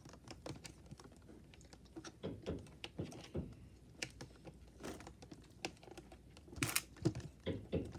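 Faint, irregular clicks and taps of hands working doll packaging, untwisting the twist ties that hold the doll to the box insert, with a quick cluster of clicks near the end.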